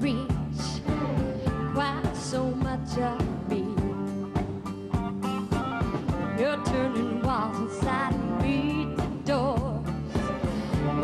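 A woman singing a country-pop song over band backing with a steady drum beat. In the second half she holds notes with a wide vibrato.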